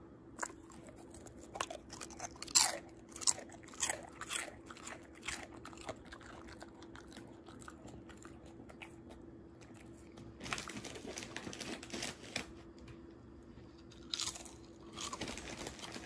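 Crunchy food being chewed close to the microphone: a run of sharp crunches in the first six seconds, then two longer, softer stretches of chewing noise later on.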